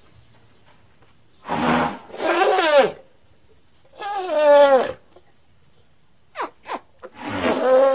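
Elephant calf calling: a series of clear, pitched calls that slide down in pitch, two close together, one more about four seconds in, two very short chirps about six seconds in, and a longer call starting near the end.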